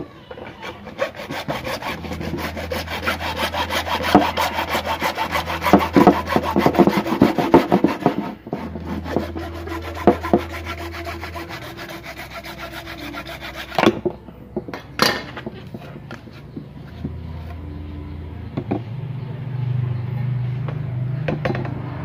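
Hacksaw cutting through grey PVC pipe in rapid back-and-forth rasping strokes, loudest in the first half, easing off as the cut finishes; a couple of sharp knocks follow about two-thirds of the way in as the pipe is moved.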